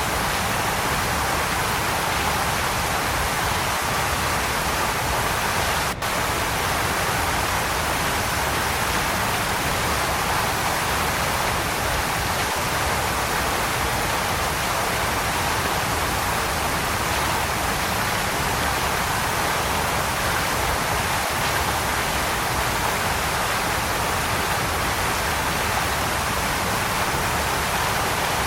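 Waterfall: a steady, unbroken rush of falling water, with a momentary dropout about six seconds in.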